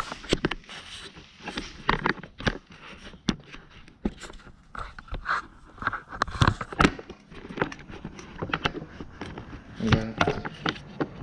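Irregular clicks, taps and short scrapes of hands fitting a plastic kill switch onto a mini bike's handlebar.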